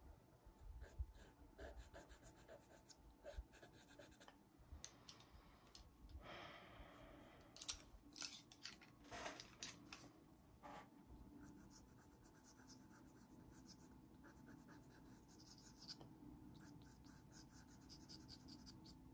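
Faint scratching of pastel pencil strokes on Pastelmat sanded paper, with scattered light clicks and a brief rustle about six seconds in.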